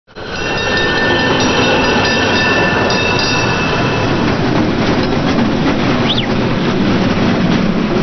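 Passenger train running: a steady rail rumble, with a high whine over the first four seconds and a short high squeal about six seconds in.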